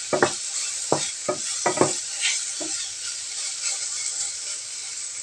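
Shimeji mushrooms sizzling in a frying pan while a wooden spatula stirs them, with several short scrapes and knocks of the spatula against the pan in the first three seconds over a steady sizzle.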